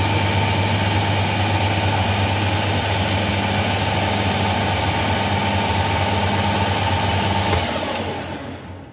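Taiwanese metal-turning lathe running with its chuck spinning a steel bar: a steady hum. About seven and a half seconds in there is a click as the lathe is switched off, and the spindle winds down to a stop near the end.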